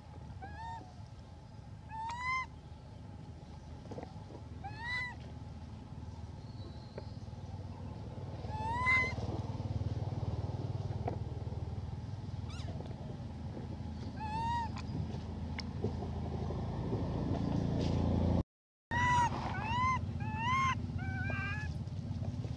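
Young macaque giving high, clear coo calls, about nine in all, each rising and then falling in pitch. They come several seconds apart at first and in a quicker run of four near the end: food-begging coos. A low rumble runs underneath and cuts out for a moment about three-quarters of the way through.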